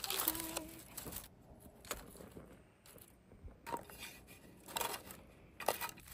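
A few short, separate rustles, crackles and clicks of dry kindling and a lighter being handled as a small campfire is lit.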